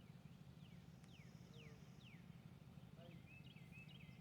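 Near silence with faint bird chirps: four quick falling notes, then a short burst of twittering about three seconds in.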